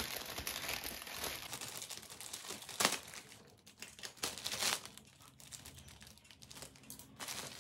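Plastic courier bag and packaging crinkling and rustling as they are handled and cut open with scissors, with one sharp crackle about three seconds in.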